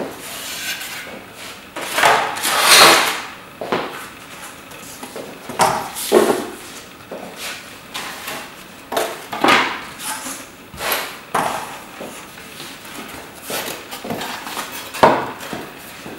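Foam board being cut with a craft knife by hand: an irregular series of short scraping strokes, with a sharper knock near the end.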